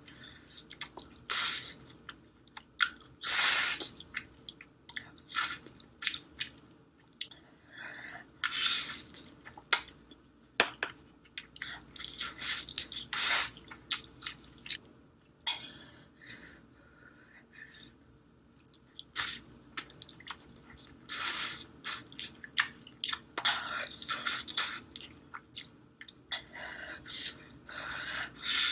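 A person eating spicy instant ramen noodles close to the microphone: wet chewing with irregular louder slurping bursts, some a second long.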